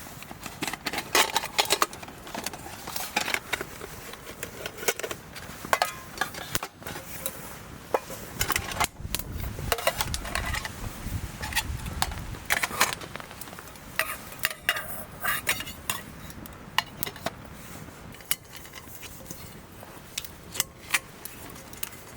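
Metal camp gear and cookware being handled: irregular clinks, taps and clatter, with a low rumble for a few seconds about halfway through.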